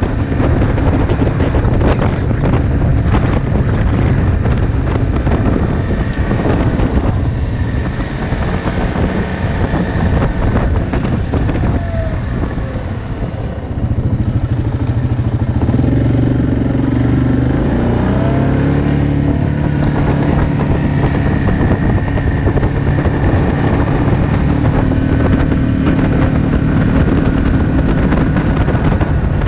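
ATV engine running under way on a gravel road, mixed with dense wind and tyre noise. The engine eases off about halfway through, then pulls again with a steadier tone.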